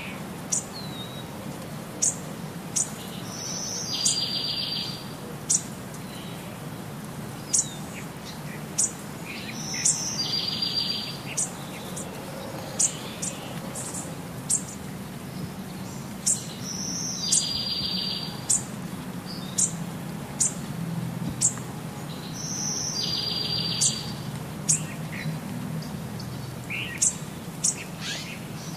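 Birds chirping: short, high chirps again and again, and about every six seconds a buzzy trill lasting about a second, over a low steady hum.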